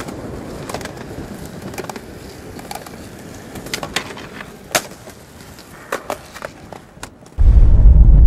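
Skateboard wheels rolling on rough concrete as a skater pushes up to a concrete ledge and blunt-slides along it, with several sharp clacks of the board, the loudest about five seconds in. Loud bass-heavy music cuts in abruptly near the end.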